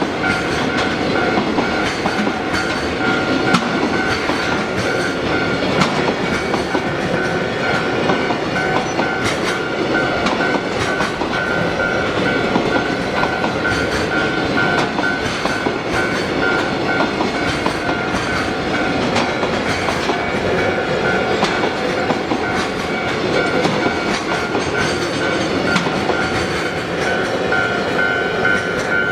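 Freight train hauled by an EH500 electric locomotive passing over a level crossing, its wheels clattering steadily on the rails, while the crossing's warning bell keeps ringing in an even, repeating beat.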